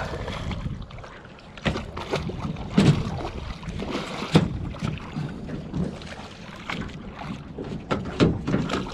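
Irregular knocks and bumps of gear and footsteps on a small fishing boat hull, the loudest about three and four and a half seconds in, over a steady rush of wind and water.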